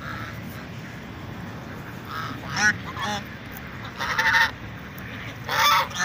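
Waterfowl calling around ducks feeding on the water: four or five loud, nasal calls come in the second half, over a steady low background.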